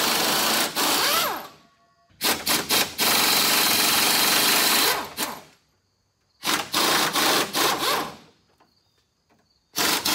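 Impact wrench hammering in repeated bursts, each begun with a few short trigger taps, as it breaks loose and spins off the last bolts holding the old receiver hitch to the truck frame. It stops and starts four times, the last burst beginning near the end.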